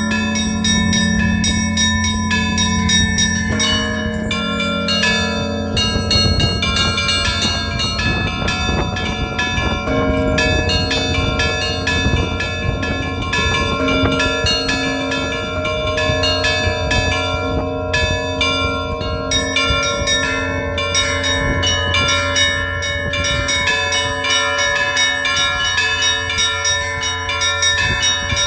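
Russian Orthodox monastery bells rung together in a continuous peal. A deep bell hum sustains underneath while many smaller bells are struck in quick, dense succession, without a break.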